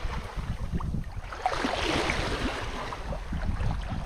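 Water rushing and splashing along the bow of a sailboat under way, in uneven surges, with wind buffeting the microphone.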